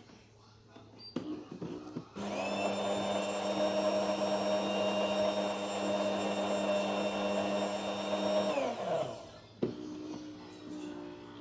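A small electric motor starts with a whine, runs steadily for about six seconds, then winds down with a falling pitch and stops.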